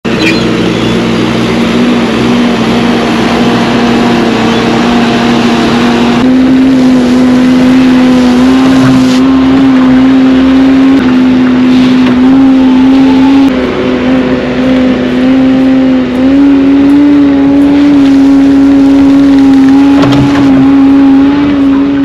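Compact track loader's diesel engine running hard with a steady drone, its pitch dipping and rising every few seconds as the machine pushes and spreads loose soil with its bucket.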